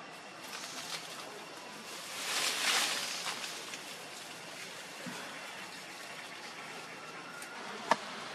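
Rustling of dry leaves and twigs as a baby monkey scrambles through leaf litter and climbs a thin sapling, swelling loudest for about a second around two to three seconds in. A single sharp click comes near the end.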